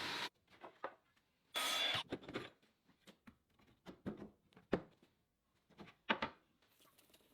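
A short hissing burst about two seconds in, followed by a string of light knocks and clicks of wooden parts being handled and set down on a workbench.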